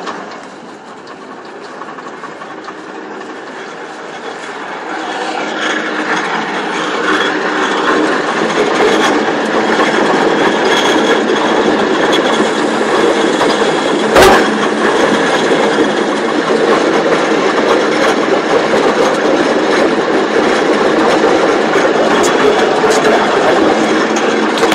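Fortschritt E512 combine harvester running, a steady mechanical noise that builds over the first several seconds and then holds. A single sharp knock comes about halfway through.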